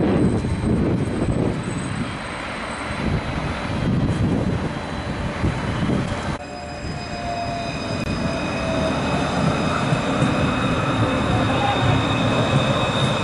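Articulated low-floor tram running past on street track, its wheels rumbling on the rails. About halfway through the sound changes abruptly and a steady high whine joins the rumble.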